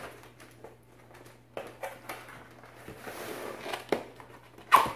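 Cardboard box being handled and opened by hand: scattered rustles, scrapes and light taps of the cardboard, with one sharp, loud snap or knock near the end.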